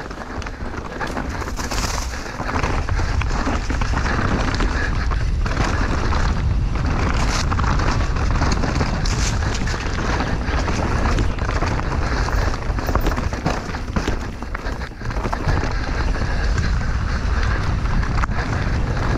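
Mountain bike descending a rough trail at speed: wind buffeting the microphone and tyres rumbling over dirt and rock, with frequent sharp clatters and knocks from the bike.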